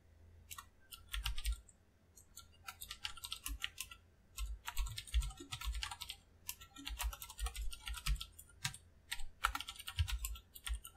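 Typing on a computer keyboard: quick, irregular runs of key clicks with short pauses between them.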